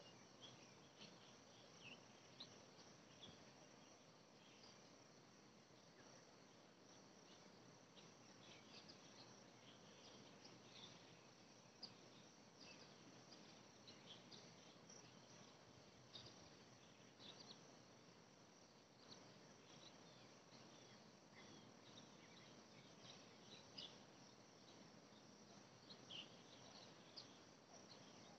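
Faint, steady high-pitched chirring of insects, with short high chirps scattered throughout.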